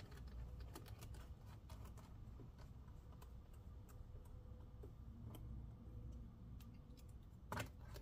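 Faint, scattered small clicks and ticks of a screwdriver turning screws into a laptop's plastic bottom cover, with a couple of sharper clicks near the end.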